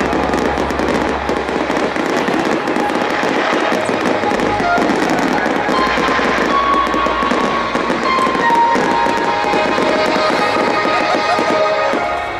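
Aerial firework shells bursting in rapid succession, a dense, continuous run of bangs and crackling, with music playing alongside.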